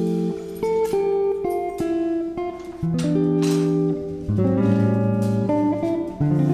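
Background music: a plucked guitar playing a melody.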